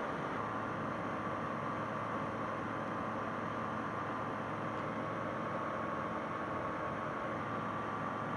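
Steady drone of a Bristell light sport aircraft's Rotax 912 engine and propeller in cruise flight, heard as an even hiss with a low hum through the aircraft's radio intercom.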